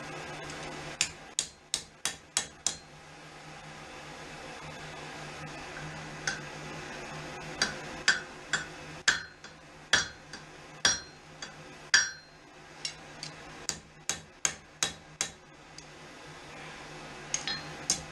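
Hammer blows ringing on steel over an anvil, coming in runs of several strikes about two or three a second, as the steel is forged into a curve. The steady hum of the coal forge's blower runs underneath.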